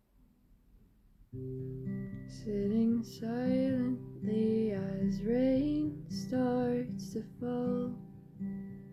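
Acoustic guitar begins playing chords about a second in, after a quiet start, with a wordless vocal melody gliding over it.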